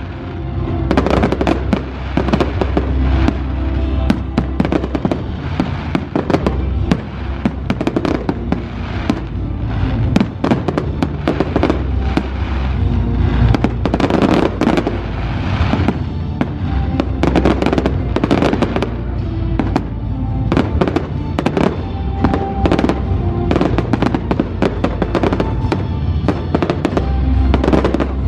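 Aerial fireworks shells bursting in a dense, continuous run of bangs and crackles, over music playing along with the display.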